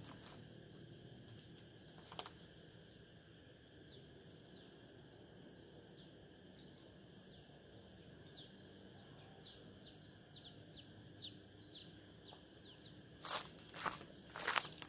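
Small forest birds calling in many short, quick, downward-sliding chirps over a faint, steady, high insect drone. Near the end come a few loud rustling knocks.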